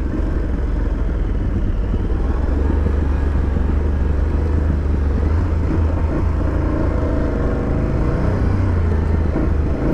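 Aprilia Tuareg 660's parallel-twin engine running steadily as the motorcycle rides along a dirt track, over a heavy low rumble.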